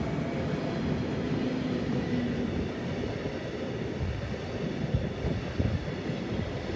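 Freight train of gas tank wagons rolling past: a steady rumble and clatter of steel wheels on the rails, with a few sharper knocks in the second half.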